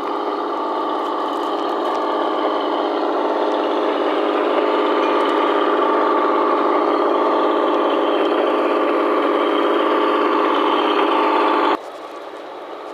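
Garden-scale model of Rio Grande Southern Motor #1 running along the track, a steady mechanical hum of its drive that grows louder as it nears, then drops suddenly to a quieter level near the end.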